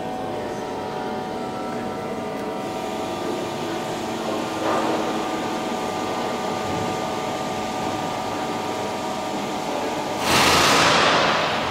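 Steady machine hum made up of several held tones. About ten seconds in, a loud rushing noise lasts about a second and fades.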